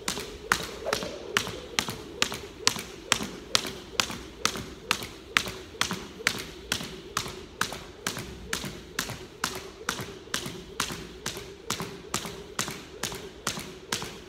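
Crossrope 1/2 lb weighted jump rope slapping a hardwood floor in a steady rhythm, about three sharp taps a second, with shoes landing on the beat of each turn.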